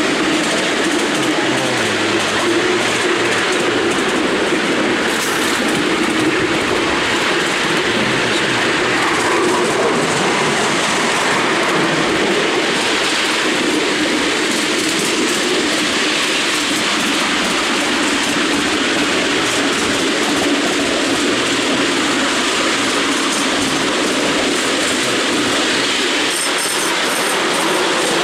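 Miniature railway train hauled by a miniature BR class 37 locomotive running steadily along the track: continuous rumble and clatter of the wheels on the rails.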